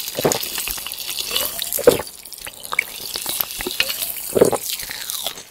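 Carbonated soda fizzing in a freshly opened aluminium can, with a few gulps as it is drunk.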